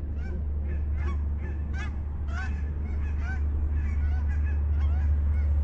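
A flock of geese honking overhead, many short overlapping calls at different pitches throughout, over a steady low rumble on the microphone.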